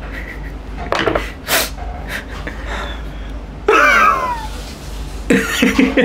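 A man's pained whining cry, falling in pitch, about four seconds in, with sharp breaths and sniffs before it, while he reacts to the burn of the spicy singju he is eating. Short bursts of laughter follow near the end.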